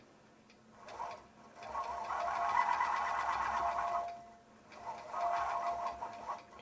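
Longarm quilting machine stitching in short runs under free-motion control: a brief spurt about a second in, then two longer stretches of steady running stitching with a short pause between.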